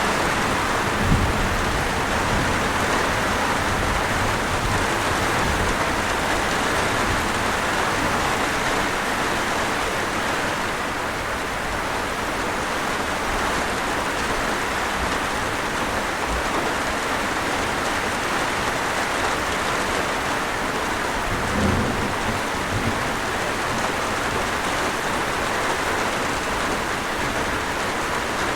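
Light rain falling steadily as a thunderstorm approaches, with low rumbles of thunder about a second in and again around three quarters of the way through.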